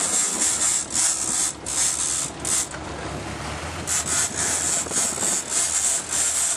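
Rhythmic rasping of a big-game trolling reel being cranked fast, about two or three strokes a second, as an angler pumps and reels in a wahoo. A boat engine hums low underneath from about halfway in.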